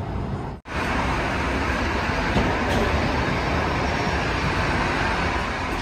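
Steady hum of the airliner cabin parked at the gate, cut off abruptly about half a second in. It is followed by a louder, steady rushing noise of airport ramp machinery heard inside the glass jet bridge.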